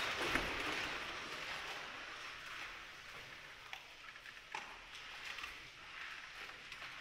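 Audience applause dying away over the first few seconds, leaving a quiet hall with a few scattered small clicks and rustles.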